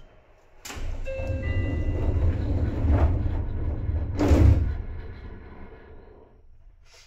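Passenger doors of a Seibu 2000 series train sliding shut while it stands at a station, heard from inside the car: a rumbling slide that builds for a few seconds and ends in a loud thud about four seconds in, then quiet.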